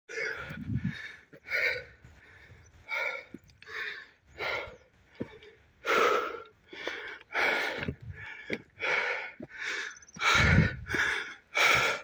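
Heavy, rhythmic panting of a person climbing a steep slope, one breath roughly every half second to second, with a low rumble near the end.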